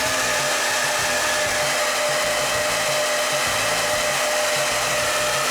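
Agaro HD 1150 Turbo Pro hair dryer with an AC motor running steadily: a loud, even rush of air with a steady motor whine.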